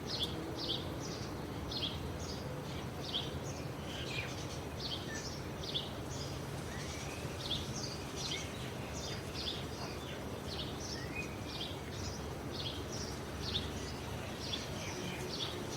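Rural ambience: many small birds chirping, short repeated chirps a few times a second throughout, over a steady low background rumble.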